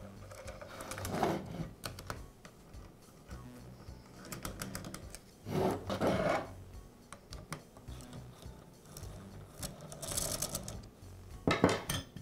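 Hex key loosening the socket-head cap screws on the cap of a Makita AN611 pneumatic nailer: light metallic clicks and ticks with the tool being handled. Near the end the cap is lifted off the nailer's body.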